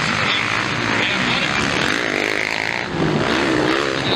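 Motocross bike engine revving, its pitch rising and falling with the throttle, with a long climbing rev about two seconds in.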